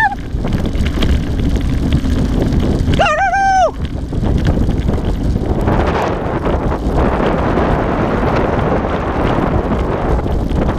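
Wind buffeting the microphone over the steady rumble of a dog team's rig moving along the trail. About three seconds in comes a short, high, wavering call.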